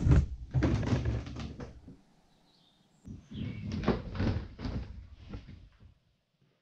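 Knocks, thuds and light clattering of gear being handled and moved on a concrete floor, in two bursts with a second of silence between them.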